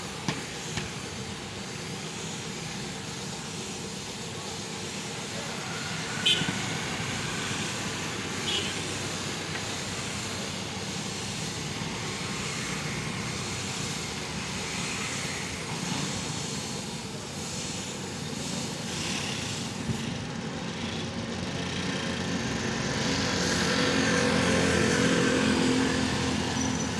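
Compressed-air spray gun hissing as it sprays paint onto a motorcycle fuel tank, over steady street traffic noise, with a few sharp clicks.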